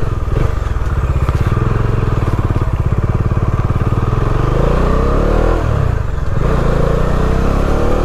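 Bajaj Dominar 400's single-cylinder engine running as the motorcycle is ridden along. The revs rise and fall around the middle, with a brief dip a little past six seconds in.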